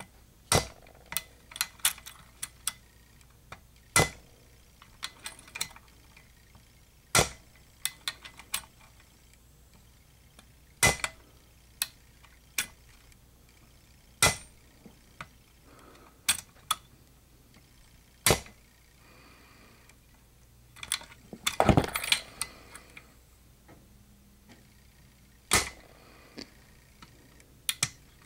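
A hammer tapping a bump key seated in a Master Lock padlock core fitted with BumpStop pins: sharp metal taps every three or four seconds, with lighter clicks of the key and lock between the blows. The lock is not bumping open.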